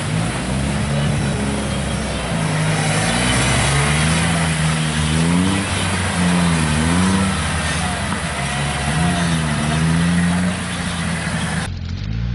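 Off-road 4x4 truck's engine revving up and down over and over as it churns through a deep mud pit, with mud and water sloshing beneath. Near the end the sound cuts abruptly to another engine pulling under load.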